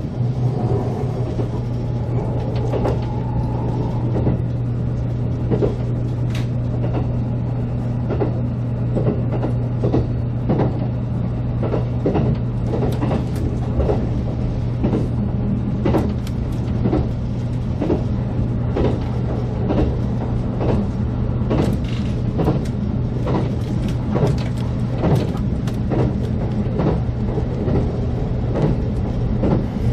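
JR Kyushu 783 series electric express train running, heard from inside the front car: a steady low hum with frequent short knocks of the wheels on the track, often in quick pairs.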